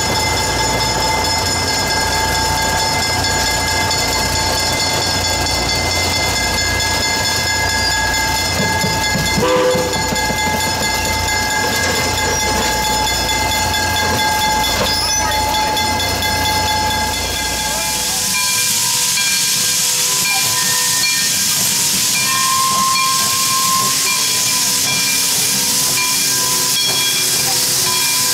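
A small diesel switcher locomotive running with a steady low engine throb. About 18 seconds in this gives way to a loud, steady hiss of steam from Pennsylvania Railroad 643, a 1901 0-6-0 steam locomotive, venting through its open cylinder cocks.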